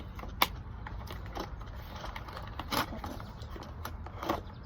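Zip ties on a toy box being cut and the packaging handled: a few sharp snips and clicks, the loudest about half a second in and another near the three-second mark, with light rustling between.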